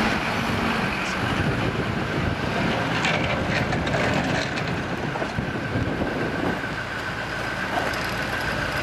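A vehicle engine running while manoeuvring slowly, with a steady whine and a few metallic clanks and rattles a few seconds in.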